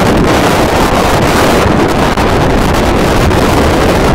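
Hurricane-force wind buffeting the microphone in a loud, steady rush of noise.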